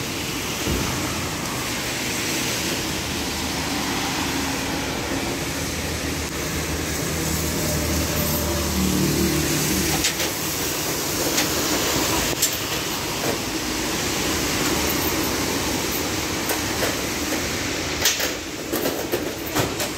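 Steady engine and tyre noise of a moving vehicle on a wet road, heard from inside, with a lower hum swelling about halfway through and a few sharp clicks and knocks, most of them near the end.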